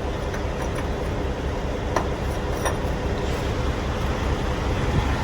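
Steady low rumble of idling diesel semi-trucks at a truck-stop fuel island, with two faint clicks a little after the middle.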